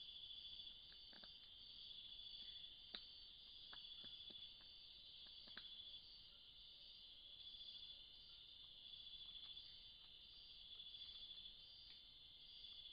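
Faint insect chorus: a steady, high-pitched trill from many insects that swells and eases every couple of seconds. A few faint sharp ticks come through in the first half.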